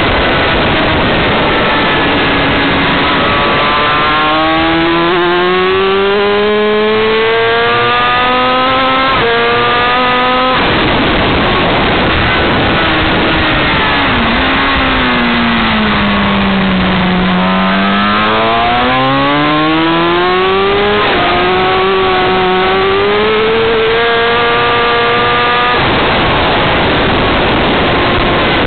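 Yamaha R6's inline-four engine revving hard on track. Its pitch climbs and drops sharply at each upshift, and it falls away for a corner and then climbs again, under constant wind rush on the microphone.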